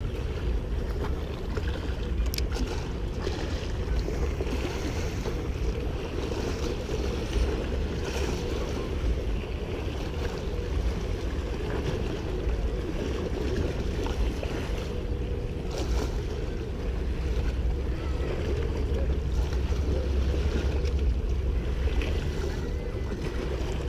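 Wind buffeting the microphone over open sea: a steady low rumble with the wash of water, and a few faint clicks.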